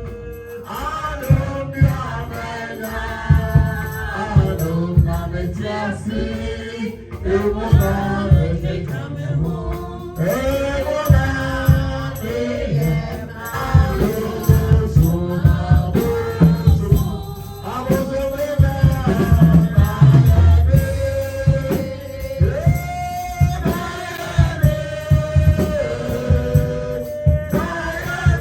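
Gospel worship music: voices singing over instruments with a steady drum beat.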